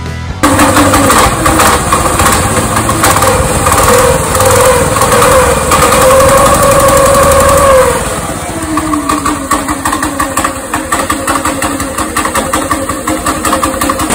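Jiang Dong 196cc single-cylinder four-stroke engine (a Honda clone) running loud and fast, then dropping to a slower, steadier speed about eight seconds in. It sounds pretty rich and isn't running quite right: the worn carburetor's adjusting screw is broken.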